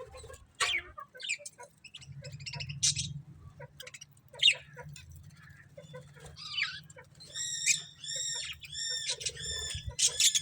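Budgerigars chirping: scattered short, sharp chirps, then in the last few seconds a quick run of about five repeated arched calls, over a faint low steady hum.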